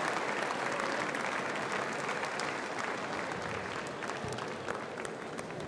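Audience applauding in a large concert hall, the clapping slowly dying down.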